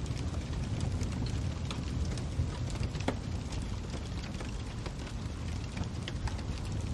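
Wood fire crackling: a steady low rumble of flames with irregular sharp pops and snaps.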